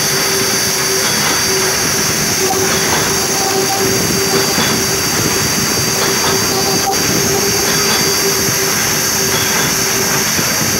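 Ultrasonic fabric-cutting machine running steadily as saree cloth feeds under its cutting horn: an even mechanical noise with a steady hum and a high hiss.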